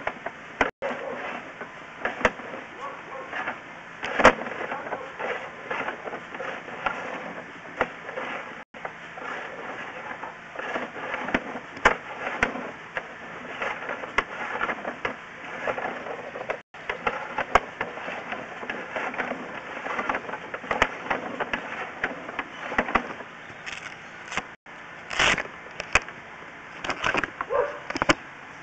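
Drain inspection camera on a push rod knocking and scraping inside a drain pipe as it is fed along, a run of irregular clicks and knocks.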